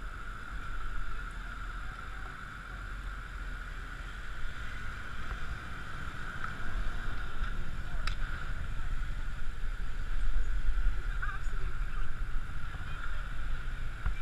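Wind buffeting the microphone of a cyclist's camera as the bike rides through slow city traffic, with a steady thin whine underneath. The rumble grows louder about halfway through as the bike picks up speed, and there is a single sharp click a little after that.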